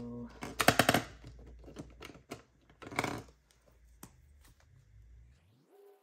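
Handling of paper money and a savings-challenge binder: a quick run of clicks and rustles about half a second in, another burst around three seconds, and lighter clicks between. Soft music with steady held tones comes in near the end.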